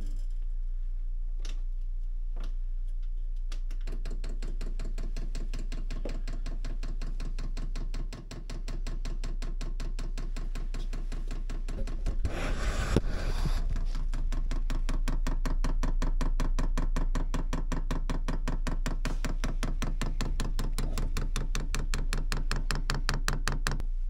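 Chinese diesel heater's dosing fuel pump ticking rapidly and evenly in self-prime mode, drawing diesel through a new fuel line and inline filter. The ticking starts about four seconds in, with a brief rustle of handling partway through.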